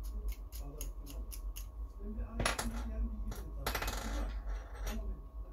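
Small metal hand tools clicking and clinking against a hard surface: light, evenly spaced ticks, then a louder clink about two and a half seconds in and a short rattle about a second later.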